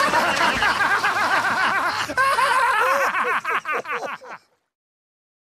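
Voices laughing: a long run of chuckles that thins out into separate ha-ha pulses and stops about four and a half seconds in.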